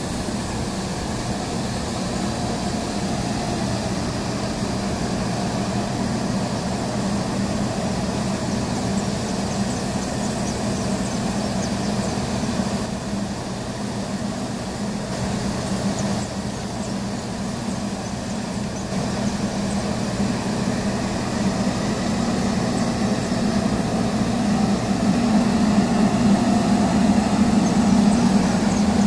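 Scania 113H 360 truck's straight-six turbo diesel idling steadily, growing louder over the last few seconds.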